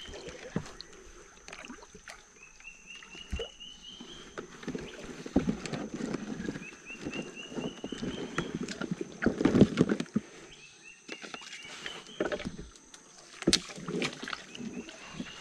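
Small boat being paddled: water swishing and sloshing with several sharp knocks. A high, rising run of rapid chirps repeats about every four seconds.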